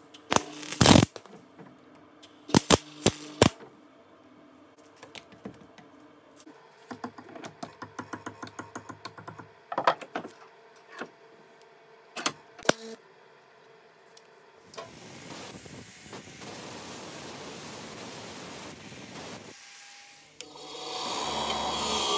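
Light metallic clicks and knocks as a small steel hook is handled in a bench vice, including a quick rattling run of taps. Then about five seconds of steady crackling hiss, typical of a MIG welder laying a short weld. Near the end a bench grinder runs with the steel pressed against its wheel, a louder grinding noise with a wavering tone.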